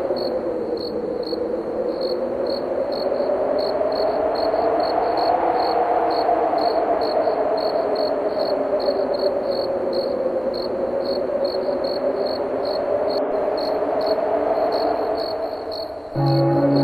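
Crickets chirping steadily, about three chirps a second, over wind blowing with a slowly rising and falling tone. Near the end a church bell strikes, its deep tone ringing on.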